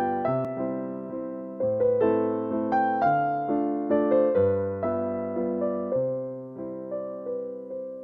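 Background piano music: a melody of struck, fading notes over chords that change every couple of seconds.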